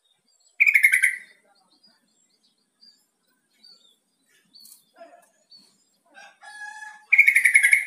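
Yellow-vented bulbul (trucukan) singing: two loud, rapid chattering phrases of under a second each, about a second in and near the end, with soft scattered chirps and a shorter, softer call just before the second phrase.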